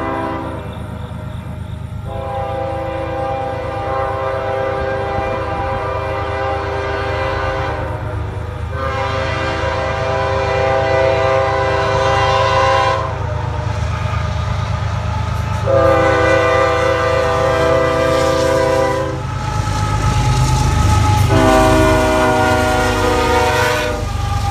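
Nathan K5HL-family five-chime locomotive air horn sounding four long blasts, its several notes together forming one chord, over the low rumble of the passing train.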